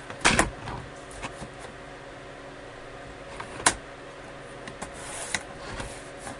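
Paper trimmer cutting a sheet of patterned paper: a few short scrapes and clicks as the blade carriage slides along its rail, with paper handled between them.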